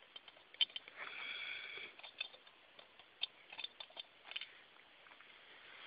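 Faint scattered clicks and taps from a small plastic toy being handled.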